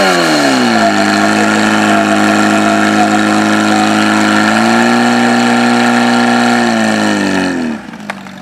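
Portable fire pump's engine running at high revs while it pumps water through the hose lines. Its pitch settles lower in the first second, rises a little about five seconds in, then falls away as the engine winds down shortly before the end.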